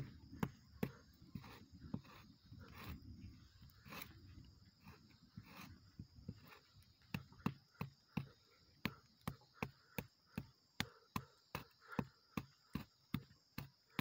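Fingernail scraping the bark of a young Australian red cedar trunk in short, faint strokes, uneven at first and then evenly spaced at about three a second, rubbing through to the red wood beneath.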